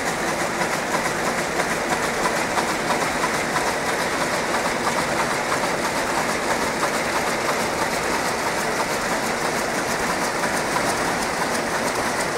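Several 910SK towel rapier looms running together, a steady dense clatter of many fast overlapping clicks.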